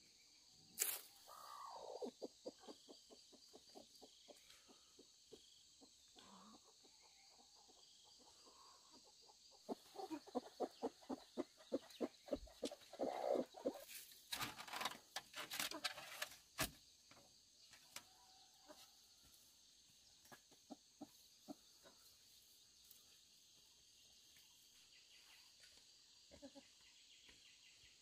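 Chickens clucking in scattered bouts, busiest about halfway through, over a steady high-pitched insect drone.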